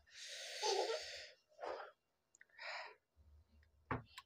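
A man's hissing breaths through the mouth: one long, noisy breath with a voiced sigh in it, then a few shorter ones. He is suffering the burn of a spicy Jolo chip.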